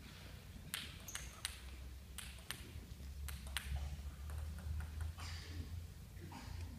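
Table tennis ball being bounced before a serve, a series of light, irregularly spaced clicks, with a low steady hum of the hall underneath.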